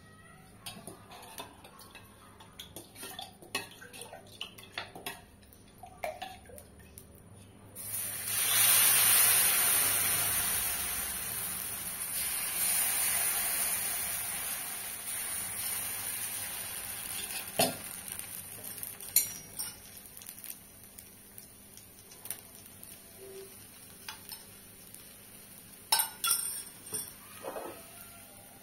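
Thin rava dosa batter hitting a hot nonstick tawa: a sudden loud sizzle about eight seconds in that fades slowly over the next ten seconds or so. Light utensil clicks come before it, and a few clinks near the end as a steel lid is put on the pan.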